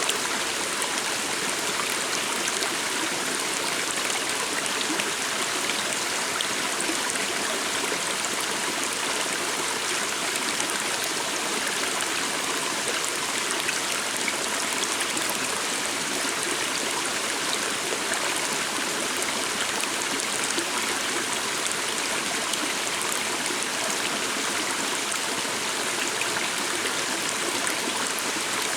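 Shallow stream running steadily over stones, an even rush of water with small splashes and trickles.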